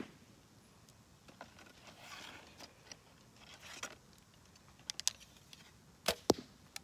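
A Diamond compound bow shot: a sharp crack as the string is released, followed about a quarter second later by a second crack as the arrow hits the block target, about six seconds in. Before it come faint rustles and light clicks of handling the bow.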